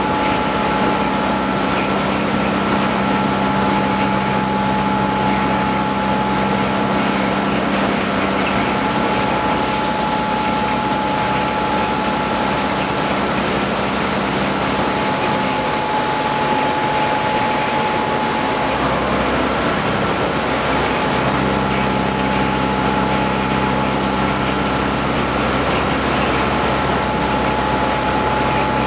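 CNC vertical milling machine cutting a billet aluminium turntable chassis plate with an end mill under flood coolant: a steady spindle and cutting whine over the hiss of the coolant spray. A higher whine joins about ten seconds in and stops about six seconds later, and the lower tones shift for a few seconds after that as the cut changes.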